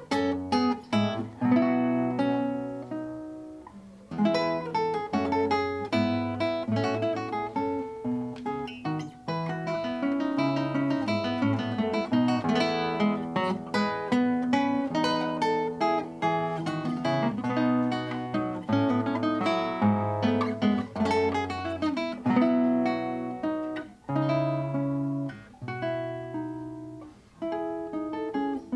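Solo classical guitar, nylon strings plucked fingerstyle, playing a continuous melody over bass notes, with brief pauses about four seconds in and near the end.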